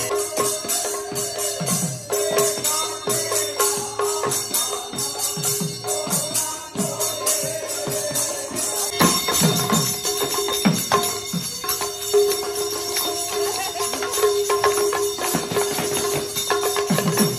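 Two-headed barrel hand drums played in a fast traditional rhythm, their deep strokes bending down in pitch, over continuous bright metallic jingling and a steady held note.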